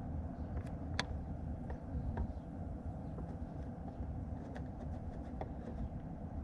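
Scattered light clicks and taps of hand tools and parts during a car's front brake pad change, over a steady low rumble; the sharpest tap comes about a second in.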